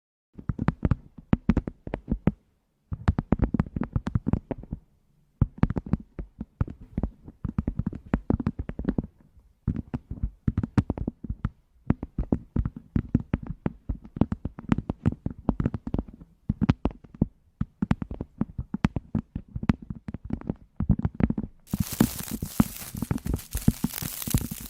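Close-miked ASMR chewing: dense runs of wet mouth clicks and crackles in bursts of a second or two, with short silent pauses between.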